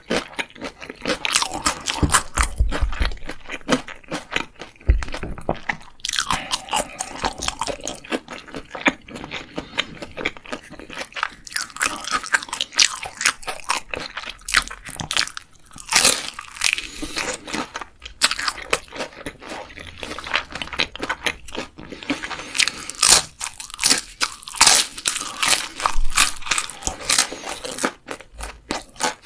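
Close-miked eating of crisp food: bite after bite of crunching and chewing, the crunches coming in quick, irregular succession.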